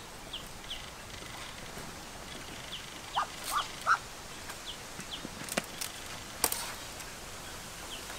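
Outdoor animal calls: faint short high chirps repeating every half second or so, with three louder short calls a little past three seconds in. A couple of sharp knocks come later, in the second half.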